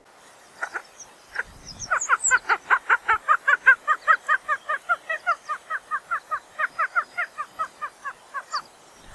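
A grouse calling a long, even series of short clucking notes, about four a second, after a few scattered opening notes. A few faint high chirps come in early.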